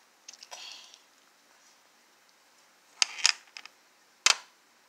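Small plastic toy pieces clicking and knocking against a plastic dollhouse display case as they are set in place. There are a few faint clicks near the start, a cluster of sharp clicks about three seconds in, and one loud click a second later.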